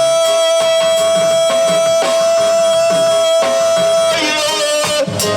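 Live reggae band playing while the singer holds one long, steady high note on "whoa", breaking off about four seconds in, with drum hits underneath.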